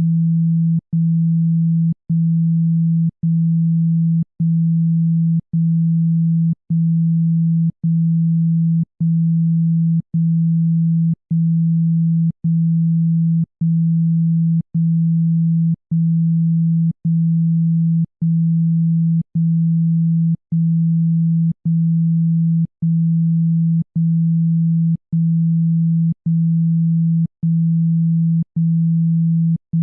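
Low pure electronic tone from a speaker-cleaning sound, played in pulses of about a second with a brief gap and a faint click between each. Meant to vibrate water and dust out of a phone speaker.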